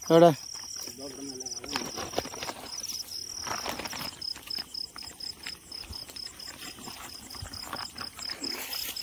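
Night insects calling: a cricket-like high, pulsing chirp, about three or four pulses a second, with rustling underfoot.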